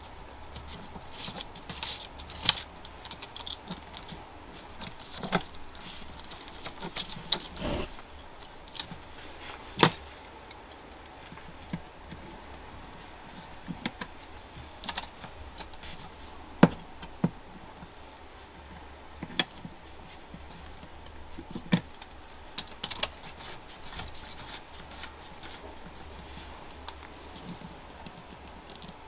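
Irregular small clicks and taps of a model railway rail being slid into the plastic chairs of a P4 turnout kit's sleeper base, with the track and template handled between. A few louder sharp clicks stand out, one about midway.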